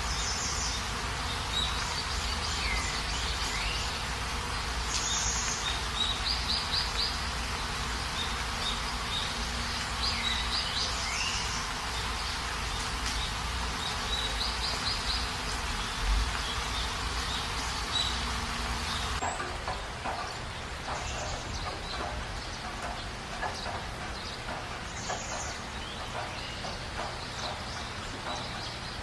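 Night insects calling in short, repeated pulsed trills over a steady background hiss, with a few falling chirps among them. About two-thirds of the way in, the hiss drops and faint ticking takes over.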